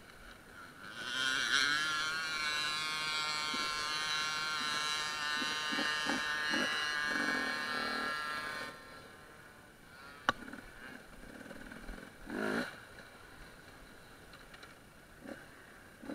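Enduro motorcycle engine running steadily for about eight seconds, starting about a second in and dropping away suddenly. A sharp click follows a little later.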